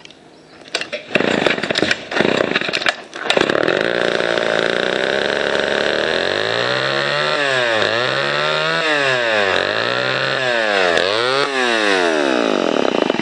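Two-stroke Homelite XL chainsaw pull-started: a few tugs of the starter cord with brief sputters, then the engine catches about three seconds in and runs steadily. In the second half the throttle is blipped repeatedly, the engine note rising and falling about five times. The saw had been run earlier, so this is not a cold start.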